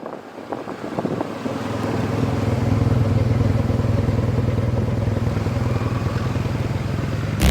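A few clicks, then the Yamaha T-Max 560 scooter's parallel-twin engine comes in about a second and a half in and runs steadily.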